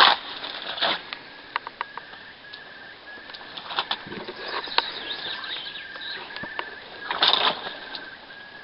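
A bird calling the same short note over and over, about two a second. Brief noisy rustles break in at the start, about four seconds in, and most loudly near the end.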